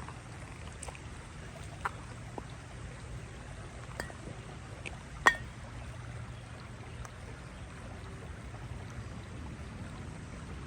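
Outdoor nature ambience: a steady low background with a few short, sharp clicks scattered through it. The loudest click comes a little after five seconds in.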